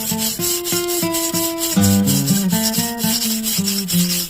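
Yanagiba knife blade scraping back and forth on a whetstone in quick, even strokes, grinding out a chipped edge. Background music with guitar and bass plays along.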